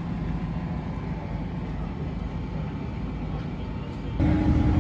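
Two-stroke chainsaw engine running steadily. About four seconds in it cuts abruptly to a louder chainsaw holding a steady high pitch.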